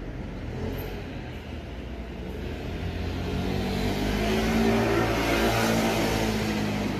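A motor vehicle going by, its engine note growing louder to a peak about five seconds in and then fading.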